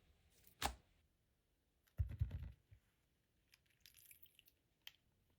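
Hands handling slime-making materials and containers: one sharp click, then a short cluster of low thumps and crackles about two seconds in, followed by light scattered clicks and taps.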